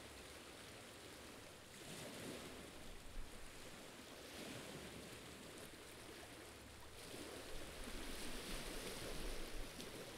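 Faint, steady hiss of calm sea water lapping at a rocky shore, a little louder in the last few seconds.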